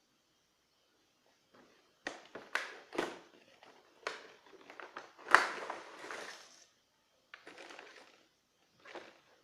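Handling noises: a run of irregular sharp clicks and knocks mixed with crinkly rustling, starting about two seconds in, with the loudest knock a little past halfway.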